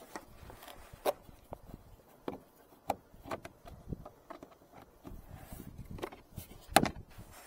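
Scattered clicks and light knocks from a screwdriver working the screws of an amber plastic roof marker-light lens, with one louder knock near the end.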